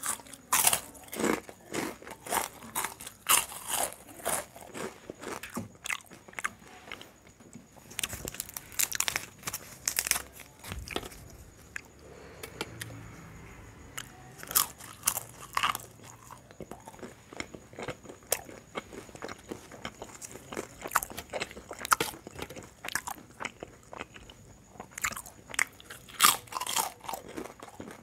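Close-miked crunching and chewing of crisp fried papad, with many sharp crunches coming in quick clusters and a softer stretch of chewing about halfway through.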